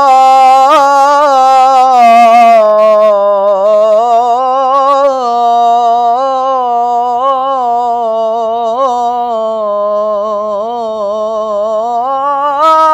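A young male munshid singing an Islamic ibtihal unaccompanied, drawing one syllable of 'subhan' out into a single long melismatic phrase. The pitch winds up and down through ornaments and rises briefly near the end.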